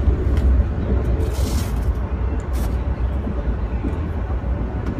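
Steady low rumble of a moving Amtrak Vermonter passenger train, heard from inside the coach, with a brief hiss about a second and a half in.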